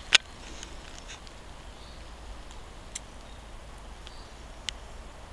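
Quiet outdoor background with one sharp, loud click just after the start and a few fainter clicks later on. Faint, short high chirps sound now and then.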